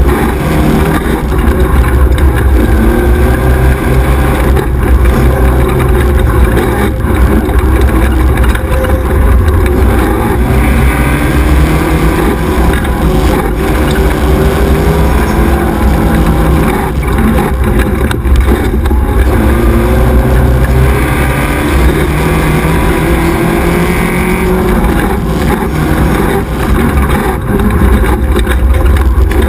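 XY 1100R buggy's engine running hard, its revs rising and falling continuously as it races along a dirt trail. It is heard onboard over a heavy low rumble of wind and bumps from the rough track.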